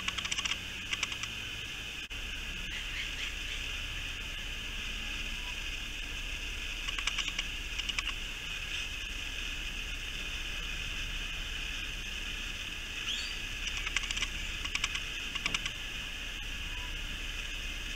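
Wallaby chewing a piece of fried chicken, short runs of rapid crunchy clicks that come three times, over a steady high hiss.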